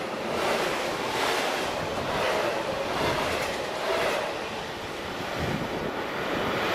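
Freight train of covered sliding-wall wagons passing at speed: the wheels rumble and clatter, surging about once a second as each wagon goes by. After about four seconds the last wagon is past and the rumble drops as the train recedes.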